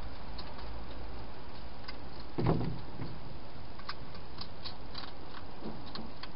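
Hedgehog eating from a bowl: a scatter of small clicks of chewing over a steady hiss, with one brief thump about two and a half seconds in.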